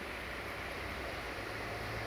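Distant diesel locomotive running, a low steady hum under an even background hiss.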